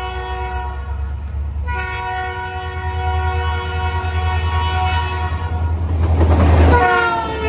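Locomotive multi-chime air horn sounding as a train approaches, over a low rumble. A short blast ends about a second in, then a long blast is held. Near the end the train passes close: the noise peaks and the horn chord drops in pitch as it goes by.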